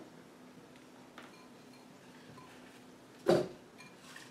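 A single short, dull thump about three seconds in, with a few faint ticks around it: apple pieces being dropped into a plastic blender jar.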